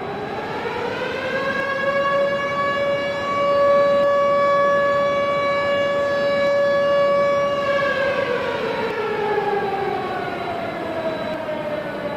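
Civil defense siren wailing as an emergency alarm. Its pitch rises over about two seconds, holds one steady tone for several seconds, falls away, and starts to rise again near the end.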